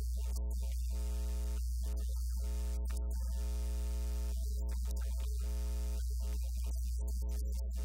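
Steady electrical mains hum with a buzz of evenly spaced overtones and a hiss above it, all unchanging, with no speech audible.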